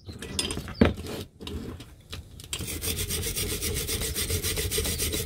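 Metal parts of an old spring-balance scale being handled, with a knock just under a second in. From about halfway, a hand wire brush scrubs back and forth fast over the rusty steel mechanism, brushing off rust.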